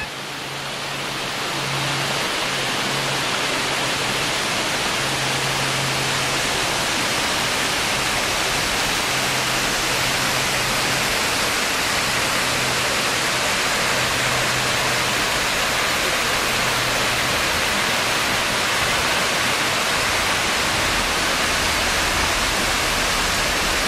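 Small creek waterfall spilling over sandstone ledges into a pool: a steady rush of falling water that swells in over the first couple of seconds.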